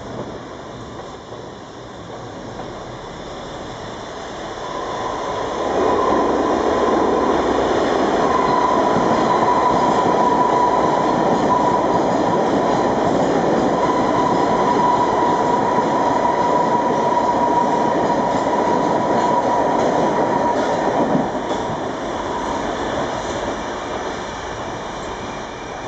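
R142 subway train passing through on the express track. It grows loud about five seconds in and stays loud for about fifteen seconds, with a steady high whine over the rumble, then fades away.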